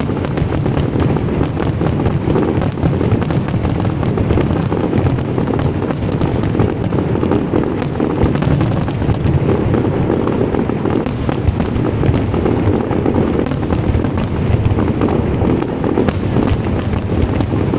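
Fireworks show at full intensity: a dense, continuous barrage of crackling and overlapping bursts with no pause.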